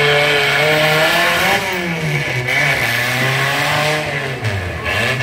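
Demolition derby compact cars' engines revving hard, held high at first, then dropping and climbing again several times as the cars push and shove in the dirt.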